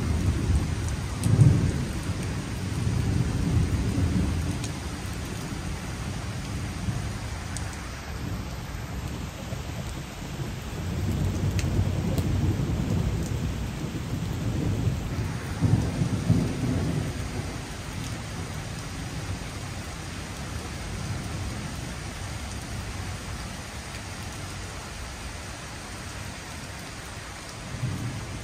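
Steady rain falling on a wet paved square, with low rumbling swells that rise and fade a few times.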